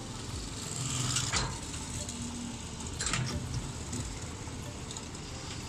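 Crawler excavator working: a steady engine hum with sharp metallic clanks and squeaks from the moving boom and bucket, loudest about a second in and again about three seconds in.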